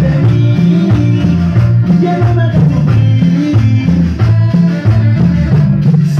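Loud Latin dance music played over a sound system, with a bass line alternating between two notes and a singing voice over it.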